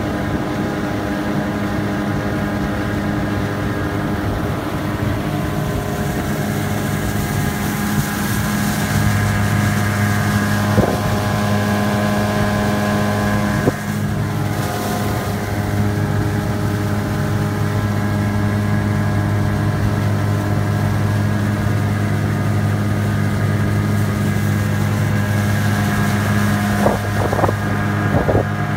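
8 HP Yamaha two-stroke outboard running steadily with the skiff under way, at about half throttle. It gets a little louder about nine seconds in, with a few short knocks near the end.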